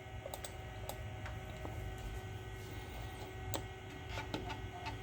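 Macintosh SE running: a steady hum from its fan and spinning hard drive, with a few faint scattered clicks.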